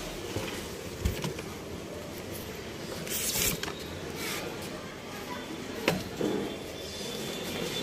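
Shop ambience with faint background voices, broken by a few short knocks and brief rustles from handling.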